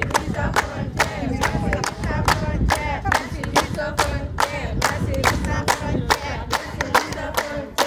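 A group of people singing together to steady rhythmic hand clapping, about three claps a second.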